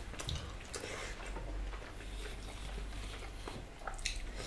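Quiet eating sounds: fingers working rice and curry on plates, with scattered light clicks and a couple of sharper ticks near the end.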